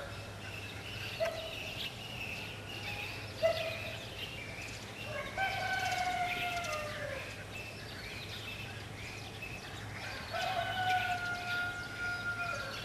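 Rooster crowing twice, each crow a long held call that drops slightly in pitch at the end, with a few shorter calls in between and faint high chirping from other birds.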